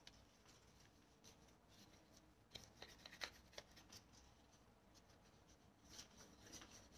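Faint rubbing and handling of a cloth working mineral oil into a dry leather knife sheath, with a few light scuffs about three seconds in and again about six seconds in.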